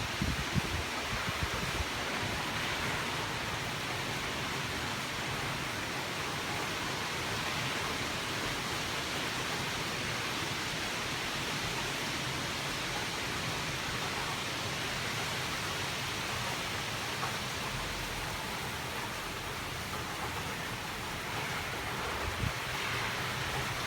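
Steady rushing storm noise of hurricane wind and rain, with a few short low thumps of wind buffeting the microphone near the start and once near the end.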